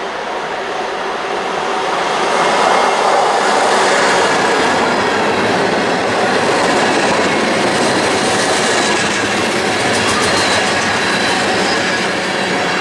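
Freight train rolling past at speed: steady wheel-on-rail rumble and clatter that swells about two seconds in, with a run of quick clicks near the end.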